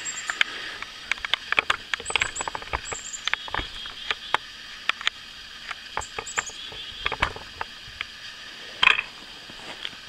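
Small fatwood fire crackling, with many sharp irregular snaps and one louder burst near the end. A few short, high, falling bird chirps come through.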